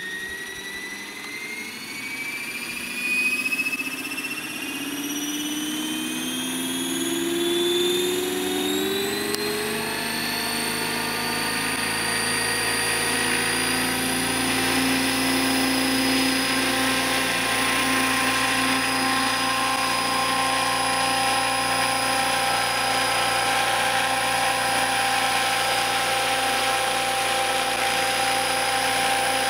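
Radio-controlled Bell 206 JetRanger scale model helicopter spooling up on the ground: a whine that rises in pitch over the first ten seconds or so, then holds steady with the rotors running at speed.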